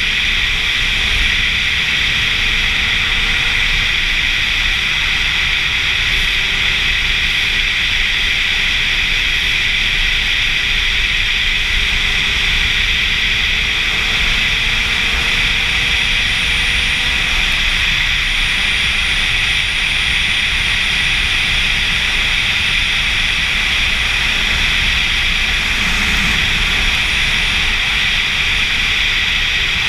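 Sportbike cruising steadily at road speed: a loud, even wind rush over the rider-mounted microphone, with a faint engine note underneath that slowly rises in pitch a couple of times.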